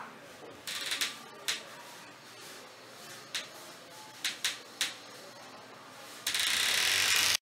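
Irregular sharp clicks, about six of them spread over several seconds, then about a second of loud, steady static-like hiss that cuts off abruptly.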